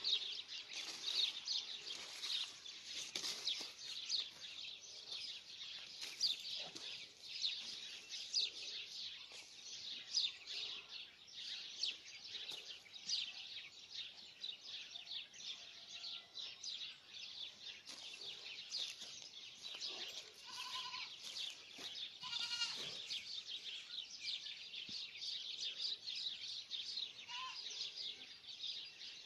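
Alpine goat bleating in short cries about two-thirds of the way in, over a constant high-pitched rasping chatter.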